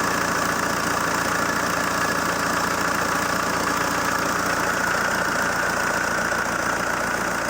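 ZMZ-514 four-cylinder turbodiesel idling steadily.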